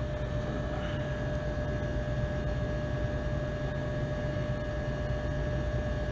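Freezer refrigeration unit running: a steady low mechanical drone with a constant whine over it.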